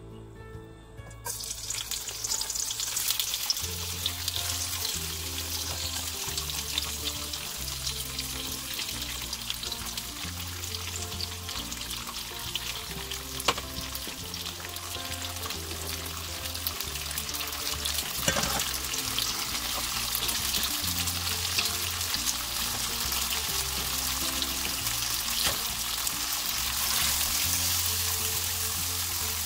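Pressed tofu going into hot oil about a second in and sizzling steadily as it is stir-fried, with a few sharp clicks. Soft background music plays underneath.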